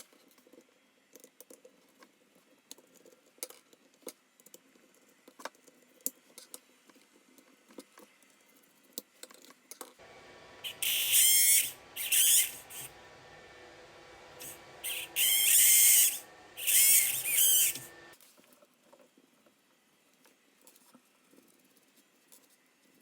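Steering servo of a WPL D12 RC truck giving five short, loud, high-pitched buzzing bursts, with light clicks before and after. It is the noise it makes when steering left, which the owner suspects may be a servo defect.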